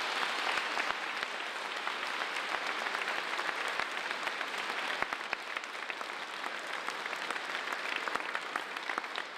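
A church congregation applauding: dense, steady clapping from a large crowd of hands that slowly eases off.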